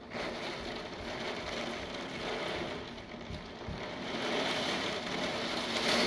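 Rain and gusting wind making a steady rushing noise that swells louder about four seconds in.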